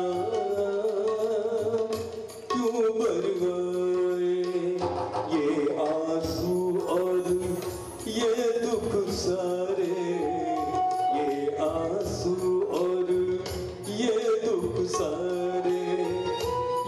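Music with a singing voice carrying a wavering melody over a low held note and a steady drum beat.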